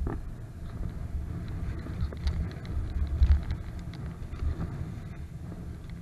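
Gusty wind rumble on the microphone of a moving electric scooter, uneven and low, with a few faint clicks.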